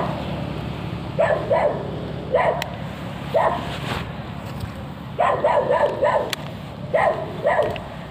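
A dog barking repeatedly, in short single barks and quick runs of two or three, each bark dropping in pitch.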